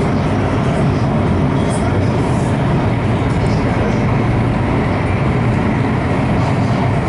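Santiago Metro Line 3 train running between stations, heard from inside the car in a tunnel: a loud, steady rumble of the moving train.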